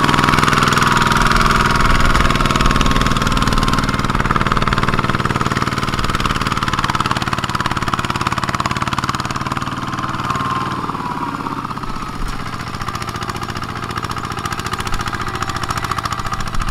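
Kubota single-cylinder diesel engine of a two-wheel walking tractor running steadily under load as it pulls a trailer of rice sacks across the field. Its low engine note weakens somewhat about two-thirds of the way through as the tractor moves off.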